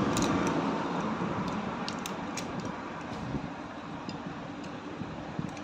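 Light metallic clicks of a spanner on the bolts and casing of a motorcycle engine as the bolts are tightened, scattered and irregular over a steady background noise.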